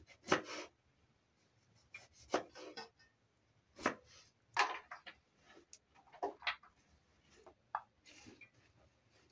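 Kitchen knife slicing a lemon on a plastic cutting board, a short sharp knock at each cut at irregular intervals. Near the end, a softer scraping as chopped onion is swept off the board by hand.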